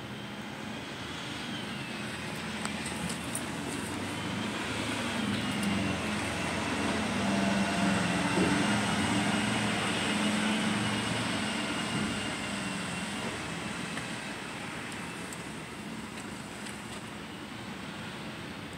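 Engine noise of something passing, with a low hum and a high whine over it; it grows louder to a peak about halfway through, then fades.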